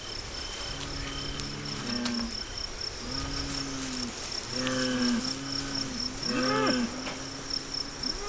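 Crickets chirping in a steady, rapid pulse, with fighting bulls lowing several times underneath, each call about a second long; a louder call rises in pitch near the end.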